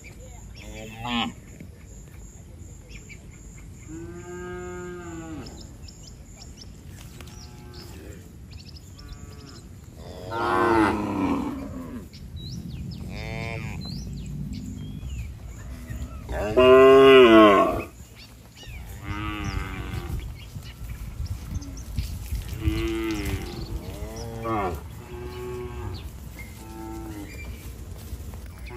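Cattle mooing over and over, about a dozen calls of different pitch and length. The loudest two are about a third and about two-thirds of the way through.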